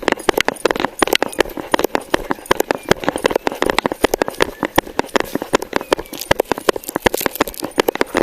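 Rapid, irregular knocking and clattering, several knocks a second without a break, like hurried footsteps and gear jostling against a body-worn microphone.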